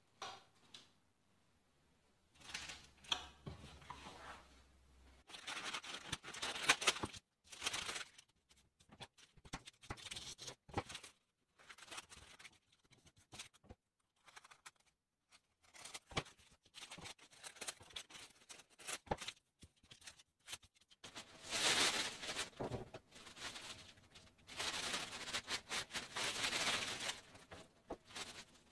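Scissors snipping through sheets of baking paper, a series of short sharp cuts, with the paper rustling and crinkling as it is handled. Near the end, a spoon scrapes choux dough from an aluminium pot into a piping bag amid more rustling.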